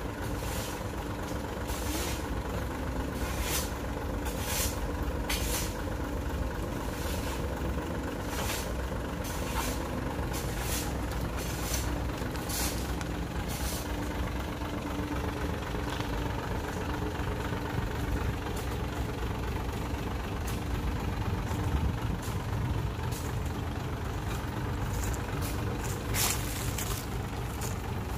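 Dump truck's diesel engine running steadily while its raised bed tips out a load of soil. A series of short sharp knocks or hisses comes roughly once a second through the first half and again near the end.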